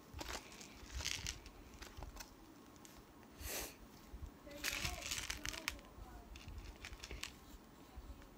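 Clear plastic jar being handled, making several brief rustling, crinkling bursts, the strongest a little after a second in, at about three and a half seconds, and around five seconds.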